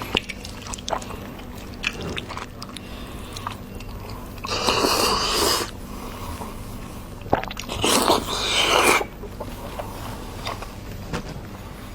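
Close-miked chewing and biting of pork fat, with many small wet clicks, and two louder rough bursts of about a second each partway through.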